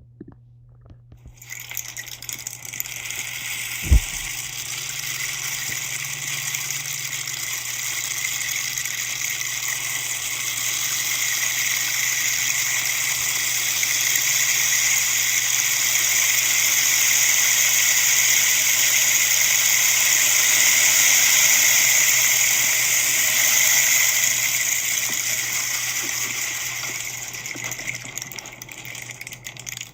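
Rainstick tipped over, its filling trickling down the tube in one long continuous rush like falling rain. It starts about a second and a half in, swells slowly and thins out near the end. A single sharp thump about four seconds in.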